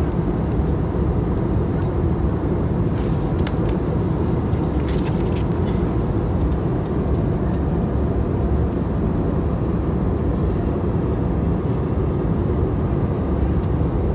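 Steady cabin noise of an Airbus A320-200 in cruise: the constant low roar of the engines and the airflow over the fuselage. A few light clicks and rustles of magazine pages being handled come about three to five seconds in.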